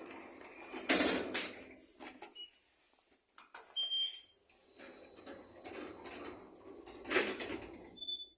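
KMZ passenger lift: a steady low rumble with short high electronic beeps, and two loud clunks, one about a second in and one near the end.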